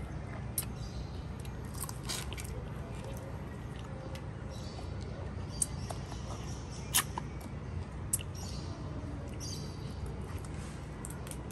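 A person eating grilled prawns: chewing and lip smacking, with scattered short clicks and crackles as the prawn shells are bitten and pulled apart by hand, over a steady low hum.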